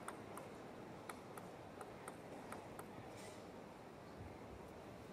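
A table tennis ball bounced repeatedly before a serve, a series of faint light clicks at two or three a second.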